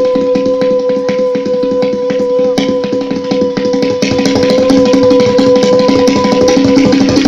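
Tabla played in a fast, unbroken run of strokes imitating a train's wheels on the rails as it approaches, growing louder about four seconds in. A long steady held tone sounds over the drumming, like a distant train horn, and stops near the end.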